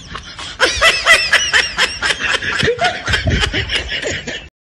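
Laughter in a quick run of short, high-pitched pulses, about four or five a second, that cuts off abruptly about half a second before the end.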